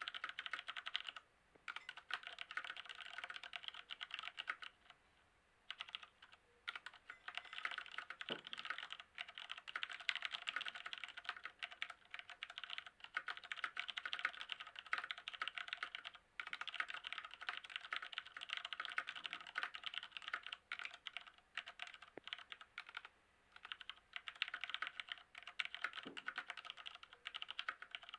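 Fast typing on an Ozone Battle Strike mechanical gaming keyboard: dense runs of key clicks, broken by short pauses every few seconds.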